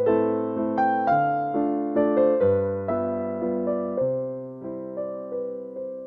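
Background piano music: keyboard notes struck and fading over low bass notes that change every second or so, in a gentle melody.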